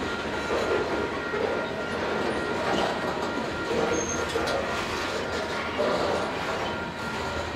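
Freight train of covered grain hopper cars rolling steadily past: wheels rumbling and clattering on the rails, with a faint steady high tone above.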